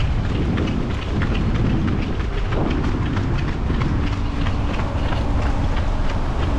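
Running footsteps of several runners on pavement, striking about three times a second, under a steady low rumble of wind on the microphone of a camera carried by a runner.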